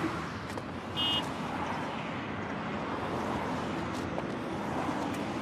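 Steady hiss of road traffic, with one short, high electronic beep about a second in.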